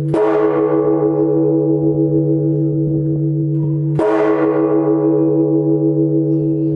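The great church bell of Phát Diệm cathedral struck twice, about four seconds apart. Each stroke has a bright clang that fades slowly over a deep, steady hum that keeps ringing between and after the strokes. This bell is said to go on sounding for up to five minutes.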